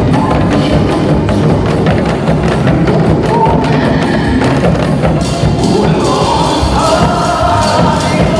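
Drum ensemble playing janggu and buk in time with trot music, a dense run of drum strokes over the song. About five seconds in the strokes get brighter and a melody line comes in.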